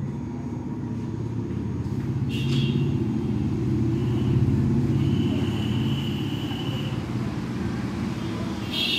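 Low rumble of road traffic, with a vehicle passing that is loudest about halfway through. Faint high steady tones come and go over it.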